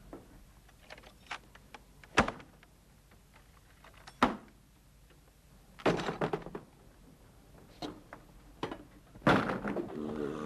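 A handful of separate knocks and thuds over a quiet background, the sharpest about two seconds in, with quicker clusters of them around six and again around nine seconds in.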